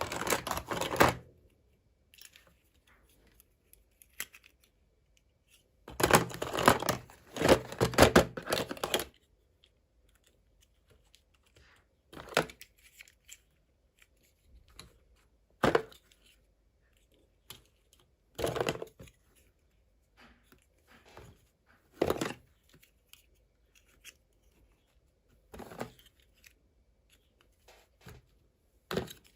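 Packaging being torn open and handled in a small room: a ripping burst at the start, a longer run of tearing and crinkling about six to nine seconds in, then short crackles every few seconds.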